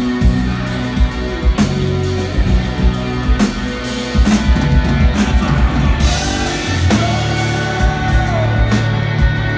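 Rock band playing live: distorted electric guitars over bass and a pounding drum kit, with sustained guitar notes and steady drum hits, and a cymbal wash about six seconds in.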